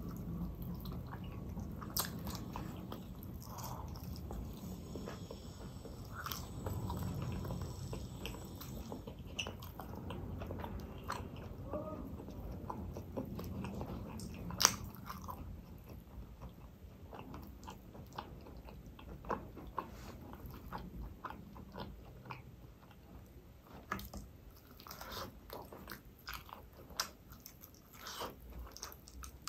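Close-up mouth sounds of a person biting and chewing roast chicken off a drumstick bone, with many short clicks of teeth and meat and one louder sharp click about halfway through.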